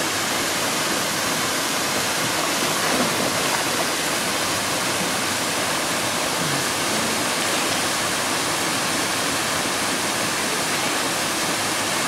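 Waterfall plunging into a rock pool: a steady, even rush of falling water.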